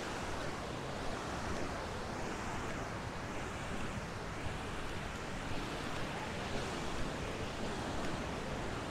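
Ocean surf washing onto the beach: a steady rush of breaking waves whose hiss swells and eases over a few seconds.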